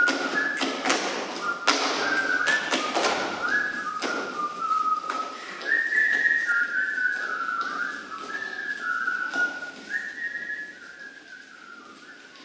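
Folk dancers' boots stamping and slapping on a stage floor, over a high whistling tune that steps from note to note. The stamping is dense at first, thins out in the second half and stops, and the tune fades near the end.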